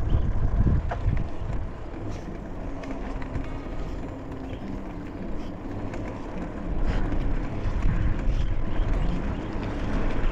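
Wind buffeting the microphone of a camera on a moving bicycle: a low, uneven rumble.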